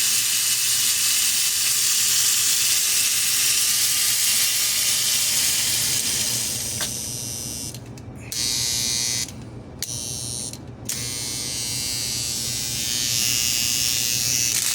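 Lionel postwar 205 diesel's small electric motor running with a steady buzzing whir, its new brushes held against the commutator by a makeshift soldered staple spring. The sound drops out briefly three times a little past the middle, then the motor runs on.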